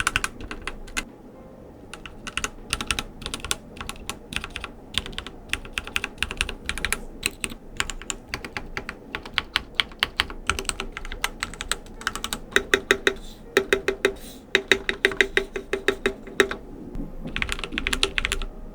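Typing on a Keychron Q6, a heavy full-metal mechanical keyboard: runs of quick keystrokes broken by short pauses, with louder, more spaced-out strokes in the latter part.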